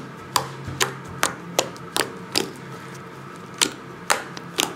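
Homemade white glue slime being poked and squeezed by hand, giving a string of sharp wet pops and clicks, about nine of them, irregularly spaced with a short pause in the middle.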